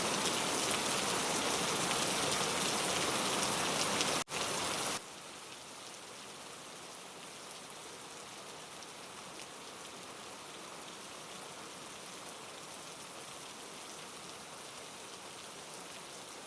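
Heavy, steady rain that cuts off abruptly about four seconds in, then, after a brief dropout, gives way to a lighter, quieter rain for the rest.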